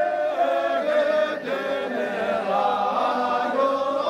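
A group singing a Syabru dance song together in a chant-like unison, with long drawn-out notes that rise and fall.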